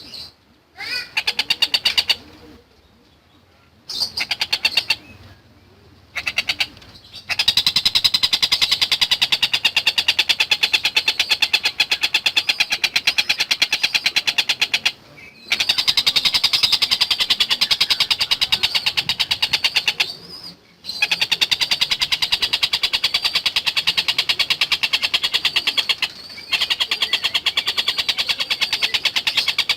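Tengkek buto kingfisher calling in long, very fast chattering rattles that last several seconds each, with brief pauses between them. The calls start as a few short bursts before settling into the long runs.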